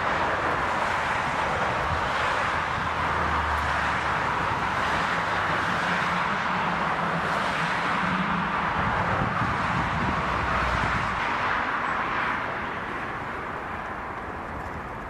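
Jet engines of a twin-engine widebody airliner running through its landing rollout just after touchdown: a steady, uneven rushing noise with some low rumble, which drops in level about twelve seconds in.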